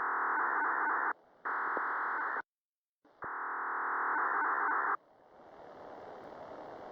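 Signalling tones from a disaster-warning radio channel picked up on a handheld scanner: three buzzy, narrow-band tone bursts, the first two split by a brief gap and the third after a short silence. After the third burst the open channel hisses, growing slowly louder toward the end.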